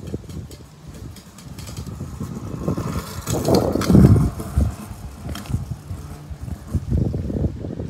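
Kick scooter's small hard wheels rolling and rattling over rough, cracked asphalt: a rumble that builds and is loudest about four seconds in, as the scooter passes close by.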